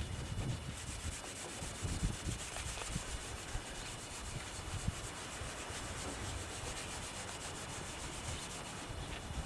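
An applicator pad rubbing plastic polish into a truck's plastic taillight lens, in rapid, even strokes that start about a second in, with a few soft knocks.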